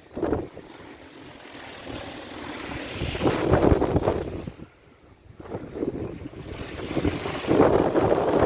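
Storm-force wind of about 25 m/s gusting and buffeting the microphone, swelling to two loud surges about three and eight seconds in.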